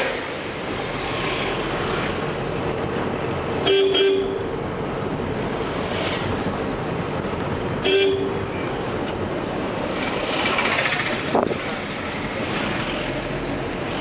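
Steady road and engine noise inside a car's cabin while driving through town traffic. A horn gives two short toots, about four seconds in and again about eight seconds in.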